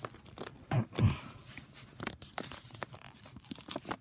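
Kraft-paper envelope being torn open and handled, a run of short rips and crinkles, with two dull thumps about a second in.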